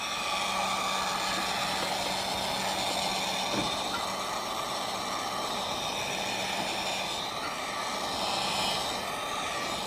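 Heat gun running steadily: an even blowing hiss with a faint low motor hum. It is being used to warm and soften the double-sided adhesive holding a car's third brake light.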